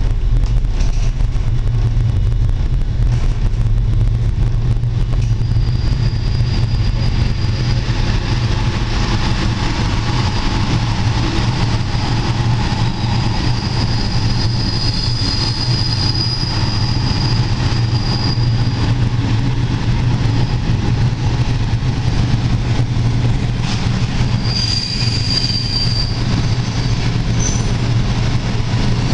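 TLK passenger train pulling out of a station, heard from its last carriage: a steady low rumble of the running gear, with a thin high wheel squeal coming in about five seconds in and lasting over ten seconds, then again briefly near the end.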